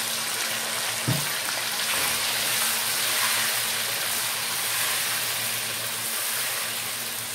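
Raw mutton pieces sizzling steadily in hot oil and browned ginger-garlic paste in a karahi as they are stirred in with a spatula.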